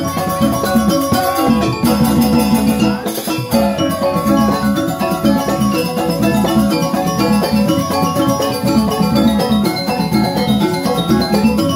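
Balinese joged gamelan playing: bamboo xylophones ring a fast, busy run of notes over hand-played kendang drums.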